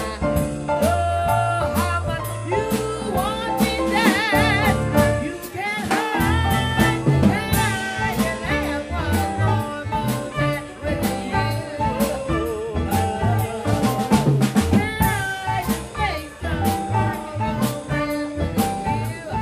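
Live jazz band: a woman sings with a wide vibrato into a microphone over walking double bass, keyboard and a drum kit.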